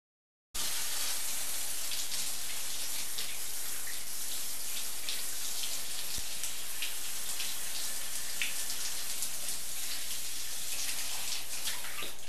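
Steady hiss of running water, with scattered small droplet ticks; it starts abruptly about half a second in.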